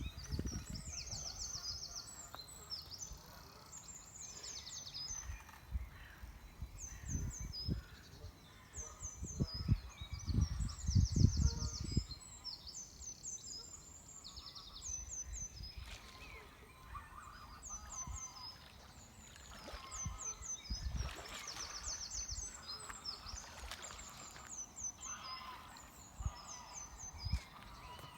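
Birds calling and singing, with short high chirping phrases repeating throughout. Low rumbling gusts come and go, loudest about eleven seconds in.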